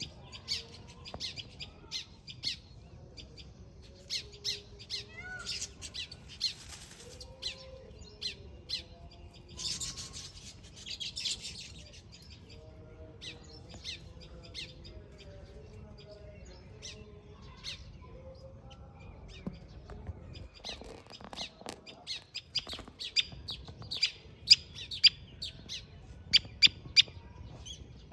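Weaverbirds chirping rapidly and repeatedly, with two bursts of harsher buzzy chatter and the sharpest, loudest chirps near the end.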